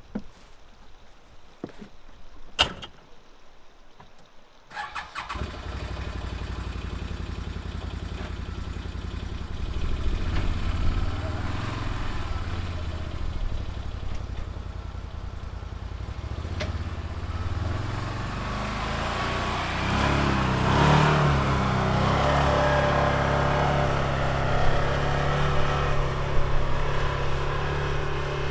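A sharp click as the UTV door shuts, then the Can-Am Defender HD10's V-twin engine starts about five seconds in and idles steadily. From about eighteen seconds on it grows louder and busier as the UTV drives off across the grass.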